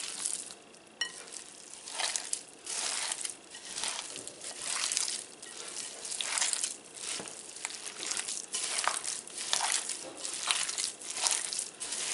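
Bare hands squeezing and kneading a raw ground bison and sausage meatloaf mix with egg and chopped vegetables in a glass bowl, in repeated squeezes about once a second.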